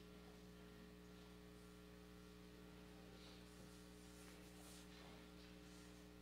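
Near silence with a steady, faint electrical mains hum, and a few faint soft noises about three to five seconds in.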